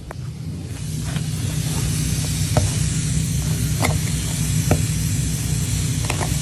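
Steady hiss of air escaping from a punctured tyre as a screwdriver pries at the rock lodged in the tread, with several sharp clicks of the screwdriver against the rock. A vehicle engine idles underneath as a steady low hum.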